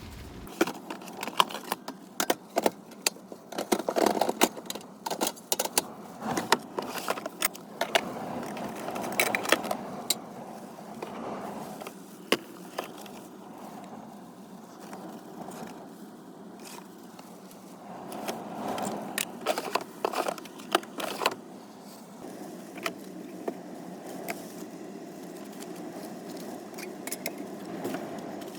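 Irregular clicks, clinks and knocks of camping gear being handled and set out to make coffee, over a steady background hiss.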